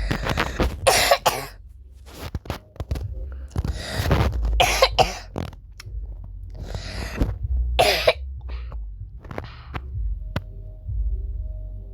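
A person wheezing and coughing in a series of harsh, breathy bursts that die out about ten seconds in.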